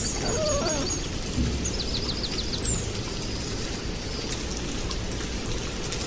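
Outdoor ambience: small birds chirping, with a quick run of trilled notes about two seconds in, over a steady hiss.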